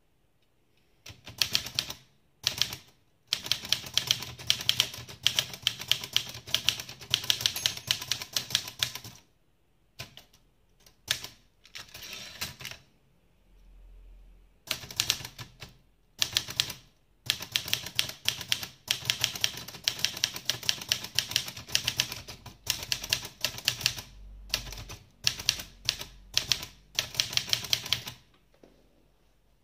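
Restored Olivetti Lettera 32 manual portable typewriter being typed on: rapid runs of key and typebar strikes broken by short pauses, stopping shortly before the end.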